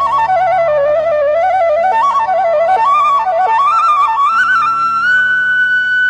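Background music: a flute plays an ornamented, wandering melody over a steady low drone, climbing to a long held high note about five seconds in.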